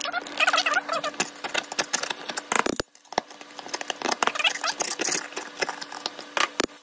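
Flat-tip screwdriver scraping rust off a corroded steel trowel: many quick scratching and clicking strokes of metal on metal, with a couple of short squeals.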